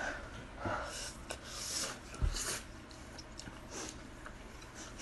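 Spicy instant noodles being eaten with chopsticks: several short, soft slurps and breaths, with a dull bump about two seconds in.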